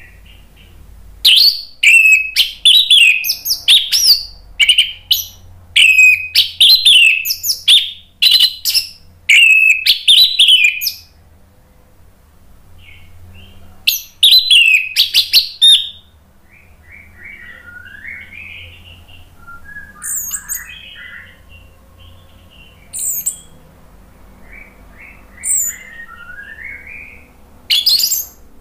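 Orange-headed thrush singing: loud runs of rapid, varied whistled phrases, broken by a softer stretch of quieter, lower twittering in the middle, then loud again near the end.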